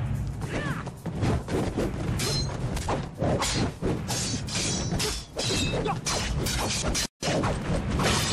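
Film fight soundtrack: a fast run of hits, whacks and swishes from a knife-against-expandable-baton fight over a driving musical score. The sound cuts out for an instant near the end.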